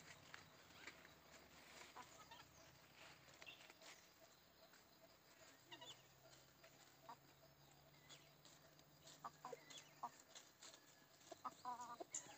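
Free-range native chickens clucking faintly in short, scattered calls, with a quick run of clucks near the end.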